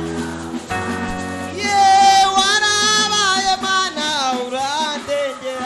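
Live Kinyarwanda gospel worship music: held instrumental chords over a steady bass. A singer comes in loud about one and a half seconds in, holding long notes that waver and bend in pitch.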